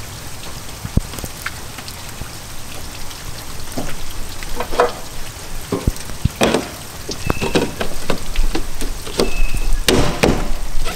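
Steady rain hiss, with scattered clicks and knocks from the pressure-washing trailer's water tank being handled, growing busier about halfway through. A low rumble joins near the end.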